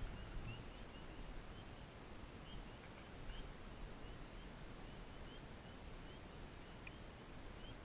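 Faint, short rising chirps from small animals, repeating a few times a second over a steady outdoor background noise.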